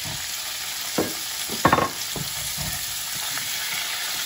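Raw chicken breast pieces sizzling in hot olive oil in a frying pan, a steady hiss, with a couple of sharp knocks about a second and a half in.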